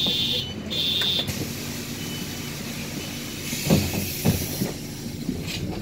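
Inside a city bus standing at a stop, with the engine running: two high electronic beeps, then a burst of air hiss with two knocks about halfway through, the pneumatic doors closing.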